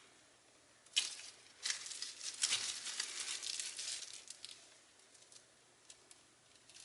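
Dry Japanese cedar leaves crackling and rustling: a dense run of crackles starting sharply about a second in and lasting about three seconds, then a few scattered crackles.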